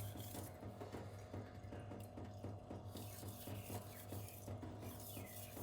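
Knife blade being stroked back and forth on a 1000-grit silicon carbide whetstone: a quiet, muted scraping in quick, even repeated strokes, over a steady low hum.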